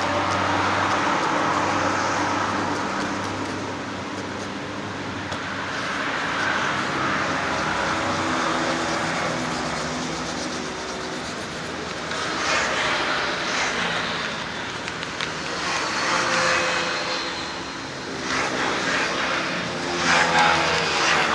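Motor vehicle engines running, with engine noise swelling and fading several times as vehicles pass.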